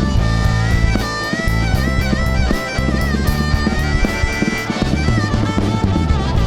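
Live rock band playing an instrumental passage, with bass and drums under a lead line of long held notes that bend in pitch.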